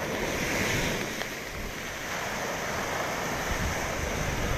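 Storm surf breaking heavily on the shore, a wave surging louder in the first second, with gusty wind buffeting the microphone.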